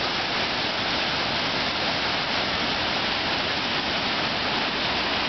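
Steady roar of the Niagara River's rapids rushing past just above Niagara Falls, an even hiss of water.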